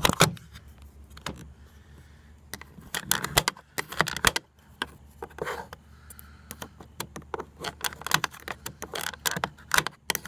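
Irregular small clicks, taps and scrapes of a hand tool working on a car's interior door panel and its screws, with plastic and metal knocking together.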